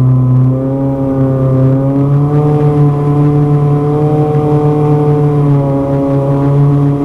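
Spec Racer Ford Gen3's four-cylinder engine, heard onboard, running at low, fairly steady revs in first gear. Its pitch creeps up slightly about two seconds in and dips briefly near the end.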